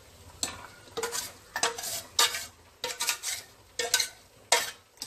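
Steel ladle scraping and knocking against a stainless-steel mixer jar and the pot, about a dozen irregular clanks, some with a short metallic ring, as ground masala paste is scraped into boiling sambar.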